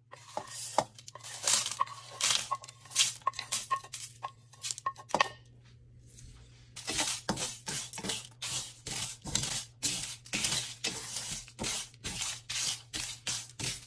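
Whole spices (coriander and cumin seed, dried red chillies, peanuts, bay leaves) tipped from a plate into a dry nonstick frying pan, rattling and pattering for about five seconds. After a short pause, a wooden spatula stirring and scraping them around the pan in quick strokes, two or three a second, as they dry-roast, over a low steady hum.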